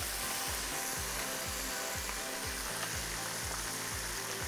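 Onions, garlic and butter sizzling in a frying pan with a steady hiss, over background music with a beat about twice a second.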